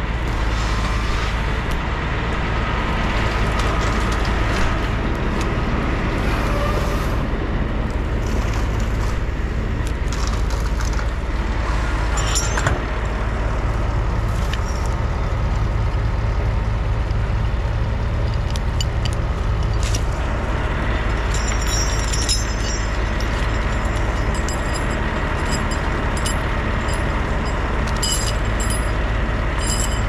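Heavy diesel engine of a forestry machine running steadily at constant speed, with scattered sharp clicks and cracks over it, more of them in the second half.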